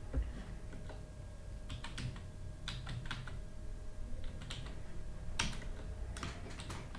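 Typing on a computer keyboard: irregular clicks of keystrokes coming in small bursts, mostly from about two seconds in.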